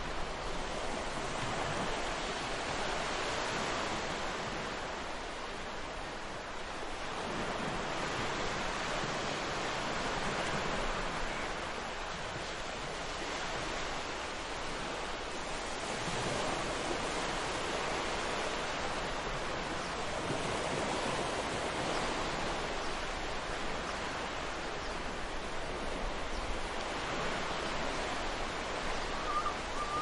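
Ocean surf washing onto a beach, a steady rush of waves that swells and eases every few seconds.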